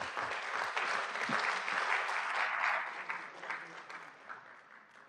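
Audience applauding, loudest in the first three seconds and dying away near the end.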